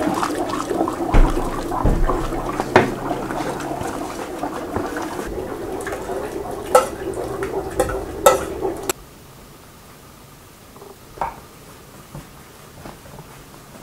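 Wooden spoon stirring in a large aluminium pot of boiling liquid, with bubbling and sharp knocks of the spoon against the pot. About nine seconds in it drops suddenly to a much quieter background with a few faint taps.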